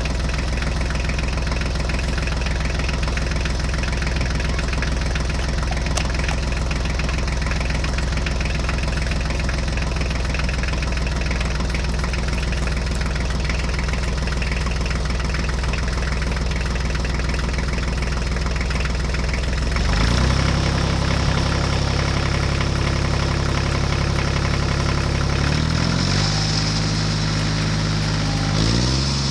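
Diesel tractor engine running steadily at idle. About twenty seconds in, its pitch steps up, and it shifts in steps twice more near the end.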